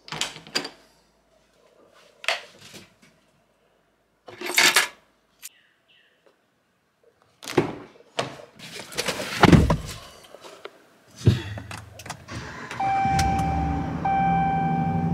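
Door latches clicking and a door being handled, then a car door opening and shutting with a heavy thunk about nine seconds in. Near the end, music with held tones starts over a steady low hum.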